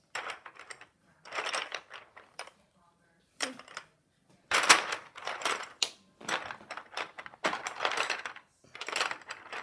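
Small plastic Playstix building pieces clattering and clicking in repeated bursts as a hand rummages through the box of pieces, loudest about halfway through.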